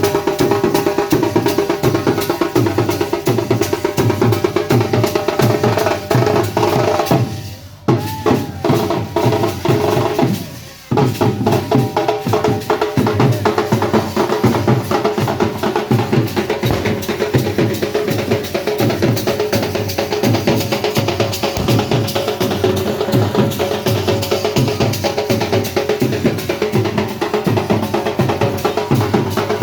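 Dhak, the large stick-beaten barrel drum of Durga Puja, played in a fast, dense rhythm. The playing drops out briefly about eight seconds in and again, for a moment, around eleven seconds, then carries on.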